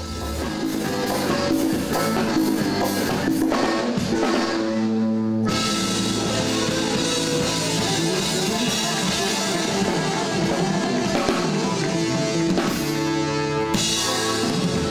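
A band playing live: drum kit, bass and electric guitars in an instrumental passage. The bass and drums drop out briefly about five seconds in, then the full band comes back in.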